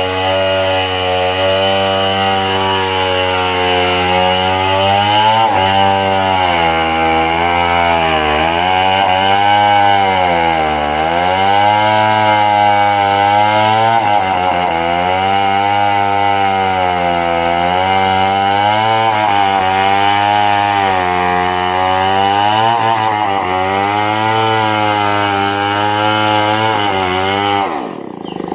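Chainsaw running at high throttle while cutting wood, its engine pitch sagging and recovering again and again as the chain bites into the cut. It starts and stops abruptly.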